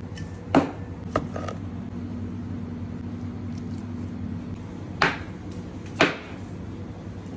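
Steady low hum of a kitchen extractor hood fan, with four sharp clacks: two in the first second and a half, then two louder ones about a second apart near the end.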